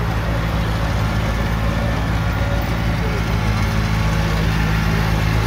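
Tractor engine running steadily at an even, low pitch, towing a barrel-train ride.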